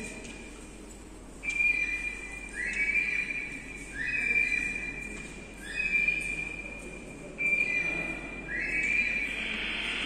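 Recorded birdsong played through hanging bell-shaped loudspeakers: a loud whistled call repeated about every one and a half seconds, each time a steady high note and a note that slides upward. Near the end a steady hiss comes up.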